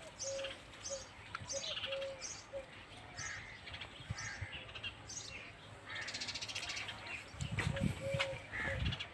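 Birds calling outdoors: a bird repeats a short call note again and again while smaller birds chirp, with a brief low rumble about seven and a half seconds in.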